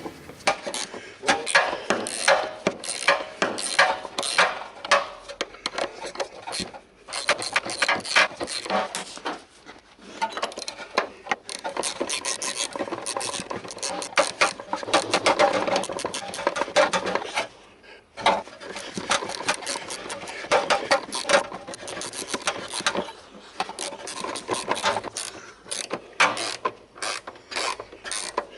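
Ratchet wrench clicking rapidly as a rusted bolt is worked forward and backward to loosen it, with a few short pauses.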